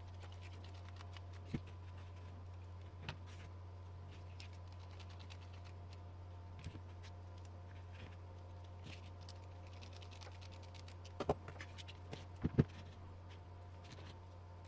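Small plastic parts and hardware of an RC car kit clicking and tapping as they are handled and fitted, in scattered light clicks with a few sharper knocks near the end, over a steady low hum.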